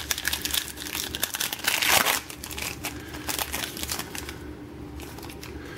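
Foil wrapper of a Panini Prizm trading-card pack being torn open and crinkled in the hands: a dense crackle of small clicks, loudest about two seconds in, fading to light rustling near the end.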